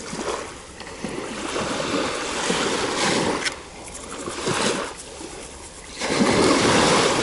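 Small waves washing up and running back over a sandy shore, swelling and ebbing several times, the biggest surge near the end.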